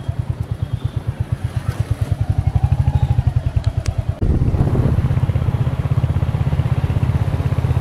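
Motorcycle engine running under way, an even, rapid beat of low pulses; about four seconds in the sound abruptly turns louder and fuller.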